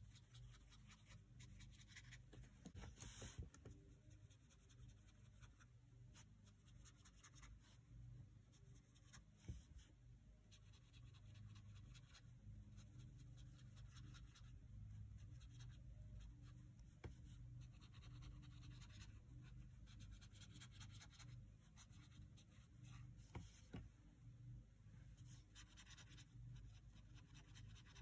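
Faint scratching of a water brush pen's tip stroking across paper in short, irregular strokes, as marker swatches are blended out with water. A low steady hum runs underneath, with a few soft clicks.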